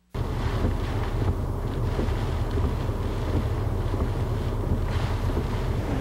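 Strong typhoon wind buffeting the microphone over a steady rushing noise, cutting in suddenly just after the start.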